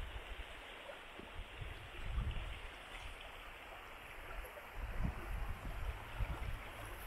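River water flowing, a steady rushing hiss, with irregular low thumps that grow heavier from about five seconds in.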